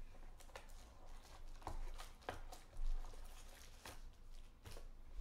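Card packs being handled and pulled out of a cardboard hobby box: a series of light taps and rustles of pack wrappers against cardboard, with one slightly louder knock about three seconds in.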